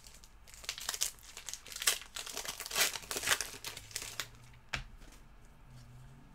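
Trading cards and their packaging being handled, a dense run of crinkling, crackling rustles for about four seconds, then a single sharp click.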